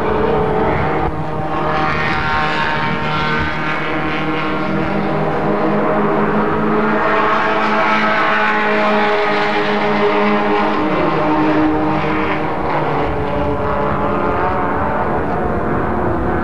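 Several race car engines running hard as they pass along the circuit, their pitch rising and falling.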